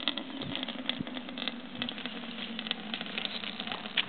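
Wind buffeting the microphone in irregular crackles, over a faint steady low hum.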